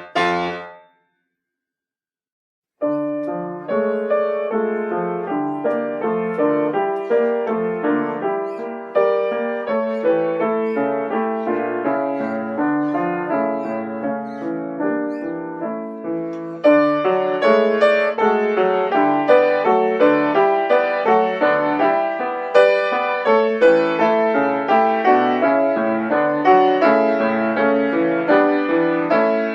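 Solo piano: the closing notes of one piece die away, about two seconds of silence follow, then a new piece begins with a steady flow of notes that grows louder and brighter about halfway through.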